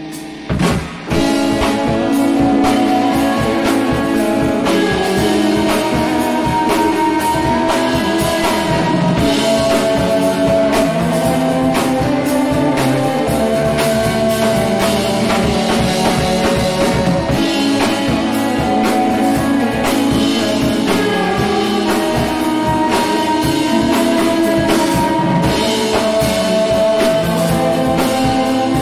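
Live shoegaze/dream-pop band playing, with electric guitar, acoustic guitar and a drum kit. The full band comes back in about a second in after a short dip, then keeps up a steady beat.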